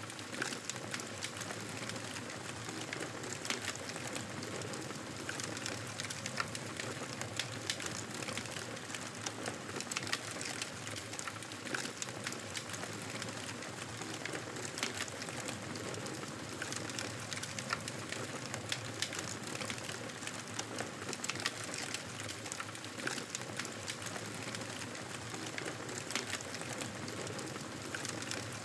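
Wood fire burning: a steady hiss with frequent irregular crackles and pops.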